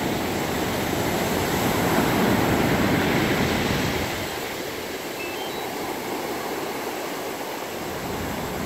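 Ocean surf washing onto the beach, a steady rushing that swells between about two and four seconds in and then eases.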